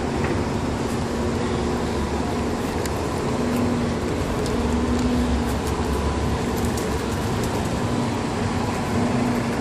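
Steady city street traffic noise, with a city bus's engine running at the curb: a continuous low rumble and a hum that swells now and then.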